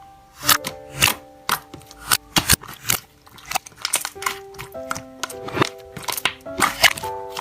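Slime being squished and worked by hand, making frequent sharp, irregular crackles and pops, over background music of simple held notes.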